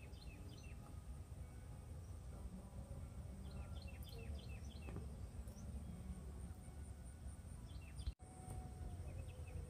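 A bird chirping in a few short runs of quick, falling notes: one at the start, one about four seconds in and one near eight seconds. Under it runs a low, steady outdoor rumble.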